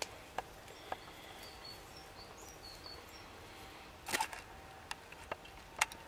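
Thuja twigs rustling and clicking as the branches are parted by hand around a songbird's nest, with sharp snaps loudest about four seconds in and again near the end. Faint short high bird chirps sound about two seconds in.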